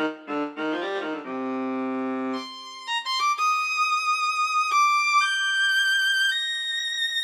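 Hammond SK1 stage keyboard playing a sampled violin-like string voice. A quick run of notes gives way to a held chord, then a slow line of high notes with vibrato.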